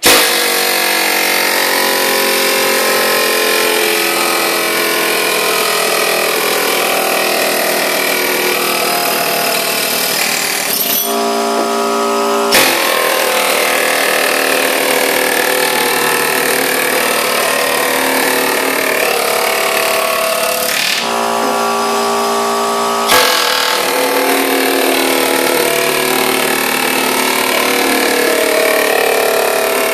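Pneumatic air scraper, an air hammer with a wide flat chisel blade, running hard against steel stair treads as it strips old floor-covering residue down to the metal. It stops twice, about 11 and 21 seconds in, for a second or two each time, leaving only a steady hum, then starts up again.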